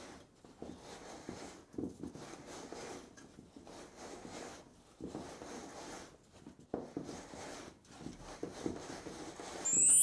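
Hands rubbing non-glutinous rice flour through a medium-mesh metal sieve: a soft, irregular rustling and brushing of flour and skin against the mesh. Near the end a short, bright transition sound effect cuts in.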